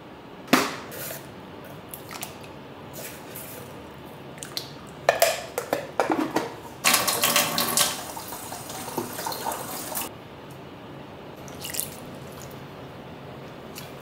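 A plastic lid clicking shut on a glass food container, a few knocks of containers being handled, then a kitchen tap running water over a head of broccoli for about three seconds.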